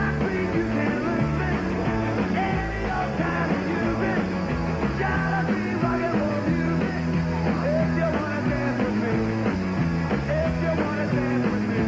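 Early-1960s-style rock and roll played by a band with electric guitars, a bass line stepping between notes in a steady beat.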